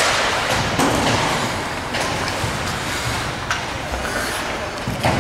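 Ice hockey play in an arena: a steady rush of rink and crowd noise, broken by sharp knocks of stick and puck about every second or so.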